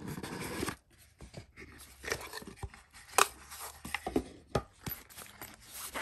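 Knife packaging being opened and handled: a cardboard box lid sliding and scraping for most of a second at the start, then scattered clicks, taps and rustles as the contents come out, with one sharp click about three seconds in.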